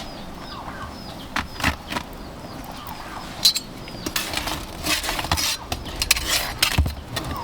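A bird chirping over and over, short falling chirps about twice a second, while sharp knocks and clinks come and go, growing more frequent in the second half.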